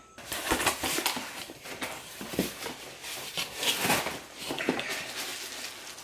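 Cardboard box being opened and its packing handled: irregular rustling, crackling and scraping of cardboard flaps, foam and plastic wrap.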